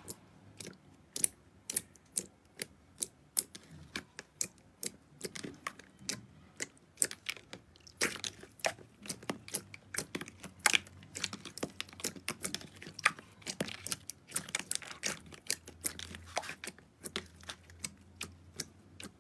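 Clear jelly-like slime pressed and poked by hand in a tub, giving a run of sharp, irregular clicks and pops, several a second, as trapped air is squeezed through it.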